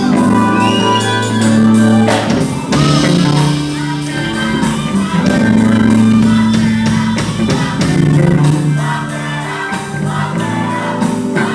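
Music with singing over sustained bass notes and a steady beat.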